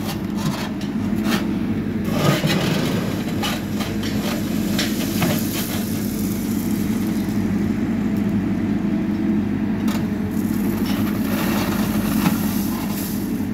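JCB backhoe loader's diesel engine running steadily as the backhoe works, with scattered clattering as its bucket scrapes and dumps gravel.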